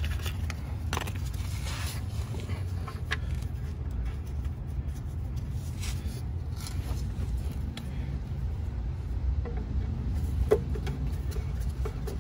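Steady low background hum, with a few faint clicks and scrapes of small parts and packaging being handled under a car.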